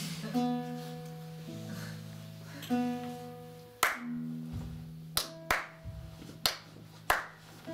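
Acoustic guitar playing slow, ringing chords, changing about every second. From about four seconds in, sharp hand claps cut in at uneven spacing, about six of them, louder than the guitar.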